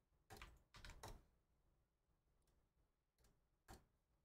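Near silence: room tone, with a few faint computer keyboard clicks in the first second and one more near the end.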